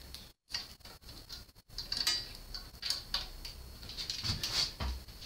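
Scattered light clicks, taps and rustling from hands handling computer parts inside an open PC case, around the graphics card.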